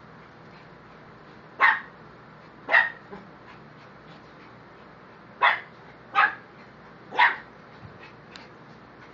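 A pug barking in play: five short, sharp barks, two close together, then after a pause three more.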